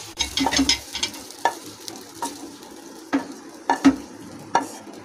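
Wooden spatula scraping and knocking against a kadai as fried onion and capsicum pieces are pushed out and drop onto a steel plate: about ten irregular knocks, some with a short ring, over a faint hiss.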